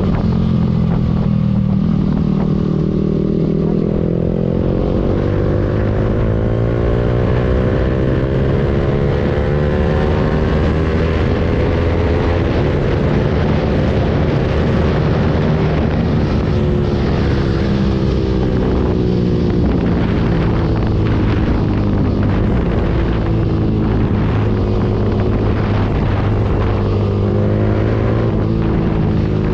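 Yamaha R15 V3's single-cylinder engine heard through an aftermarket exhaust while riding, running steadily under way. Its pitch rises slowly over roughly the first half and then falls off again.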